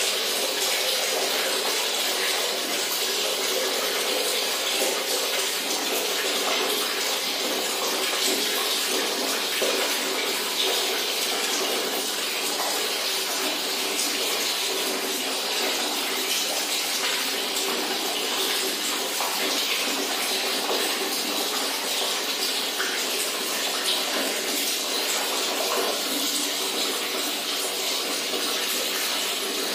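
Water running steadily from a tap, a constant hiss throughout.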